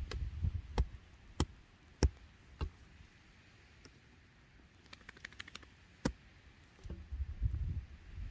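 Sharp knocks of stone being struck while pitching rock into a trail: five in the first three seconds, then a quick run of light ticks about five seconds in and one more knock, with low wind rumble on the microphone near the end.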